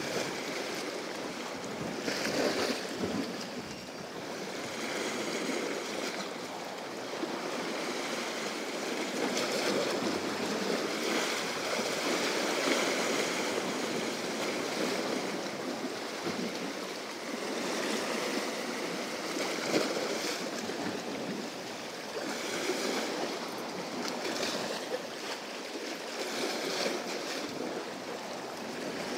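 Sea waves washing against a rocky shore, a continuous rush of water that swells and eases every few seconds.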